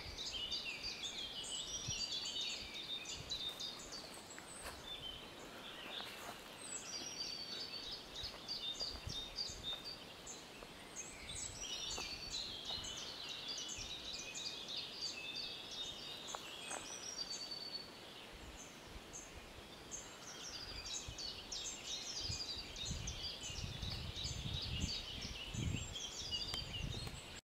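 Several songbirds singing at once in a spring woodland, a dense overlapping chorus of quick, high, chirping phrases. Low rumbling comes in near the end.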